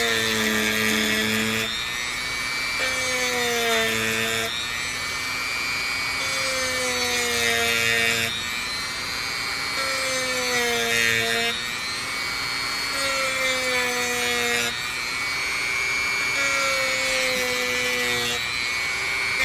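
Dremel rotary tool at its lowest speed with a 120-grit sanding band, sanding curb rash off the lip of a black-painted metal wheel rim. The motor whine drops in pitch on each pass as the band bites, about every three seconds, over a steady hiss of sanding.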